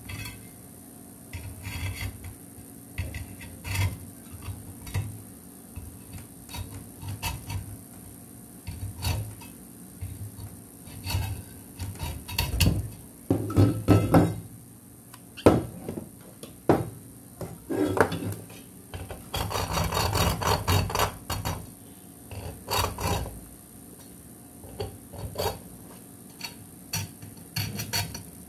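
Steel hacksaw and other metal hand tools being handled on a workbench: scattered knocks, clinks and scrapes, with a denser run of quick rasping strokes about two-thirds of the way through.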